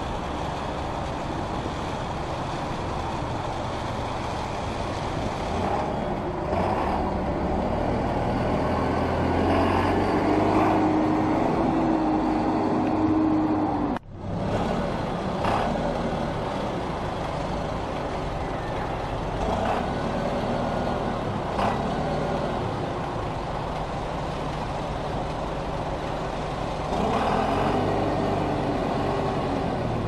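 Bus engine running as the bus moves slowly through an automatic bus wash, mixed with the steady noise of the wash's rotating brushes. The sound cuts out for a moment about halfway through.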